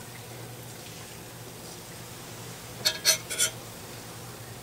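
Small metal parts clinking together: a quick cluster of about four sharp clinks about three seconds in, over a steady low hum.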